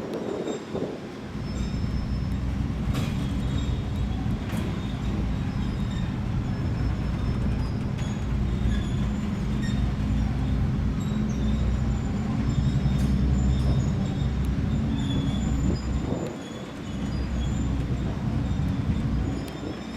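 Train being shunted slowly off the train ferry: a steady low locomotive rumble with rolling railway carriages, faint high wheel squeal and a few light clicks, easing off briefly near the end.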